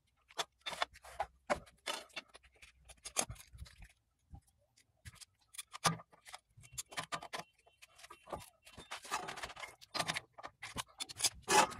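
Irregular light clicks and taps, a few a second, with some scraping and a pause of about a second midway.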